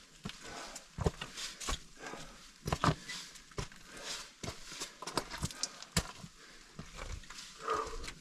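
Irregular footsteps and scuffs of a person hiking over rock and brush, with a short grunt-like breath near the end.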